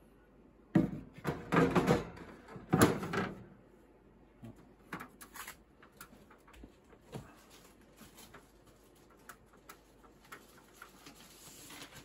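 Hard plastic panel being set into place on a bird cage, clattering and scraping in a few loud knocks over the first three and a half seconds, followed by faint scattered taps.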